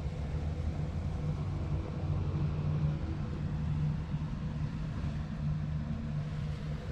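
A steady low rumble with a faint, wavering hum, like a vehicle engine running.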